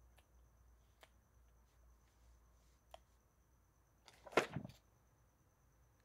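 Kissing sounds: faint lip smacks about one and three seconds in, then a louder, longer kiss about four seconds in, over quiet room tone.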